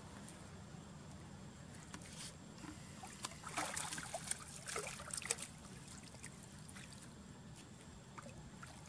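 Water splashing and dripping as a wet macaque with a baby on her climbs out of shallow water onto a muddy bank, a flurry of splashes and drips about three to five seconds in. A steady low hum runs underneath.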